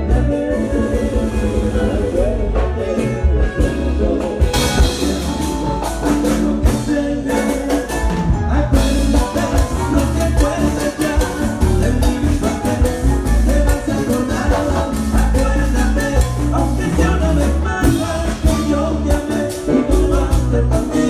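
Vallenato band playing live at a sound check, amplified through the venue's PA: a busy Latin rhythm over heavy bass, with some singing.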